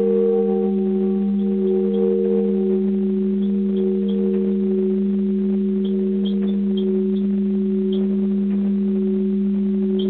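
Bronze church bell, cast in 1507, ringing with a long steady hum under two higher tones, its upper overtones fading away over the first few seconds.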